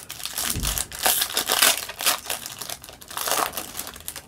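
Foil wrapper of a Topps baseball card pack being torn open and crinkled by hand: a dense crackle, loudest about one to two seconds in and again a little after three seconds.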